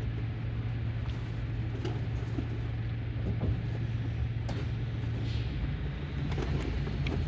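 Highway bus running, heard inside the passenger cabin: a steady low engine hum with road noise and a few faint clicks and rattles, the hum dropping away about five and a half seconds in.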